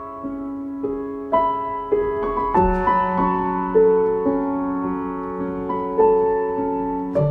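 Slow, gentle piano music: single notes and soft chords struck about every half second to a second and left to ring out.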